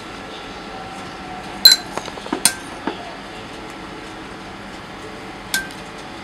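Metal spoon clinking against hard containers while kiwi is scooped out. The loudest clink comes about a second and a half in, a few more follow close together, and there is one more near the end, over a steady background hum.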